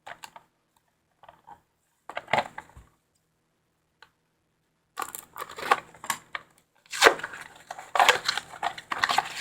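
A small cardboard box being opened and its packaging handled: a few light taps and clicks at first, then from about halfway in a continuous crackling rustle with sharp clicks.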